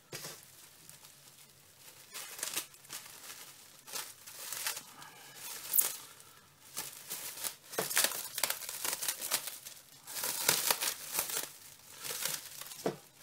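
Cling film crinkling and rustling in irregular bursts as it is stretched and wrapped around a bundle of cuttings, with louder crackles around the middle and near the end.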